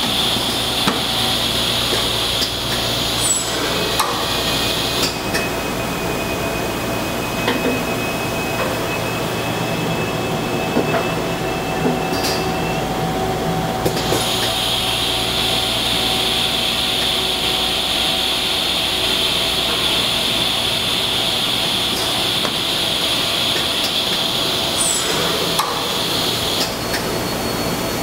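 PCB drilling machine with its panel autoloader at work: a steady machine hum and hiss, with scattered clicks and knocks as the loader arm picks and places panels. The high hiss drops away about five seconds in and comes back about halfway through.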